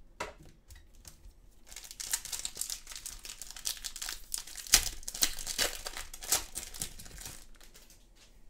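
Foil wrapper of an AFL Footy Stars trading card pack being torn open by hand and crinkled. The crinkling starts about two seconds in, with a sharp crack about halfway through, and dies away near the end.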